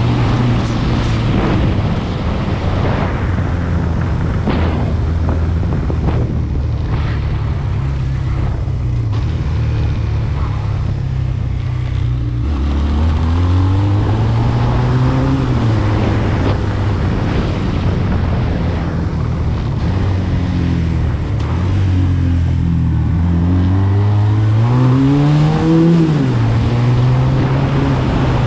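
SMC Barossa 250 quad's 250 cc twin-cylinder engine running under way. It holds steady, then revs up and back down about halfway through, and again near the end.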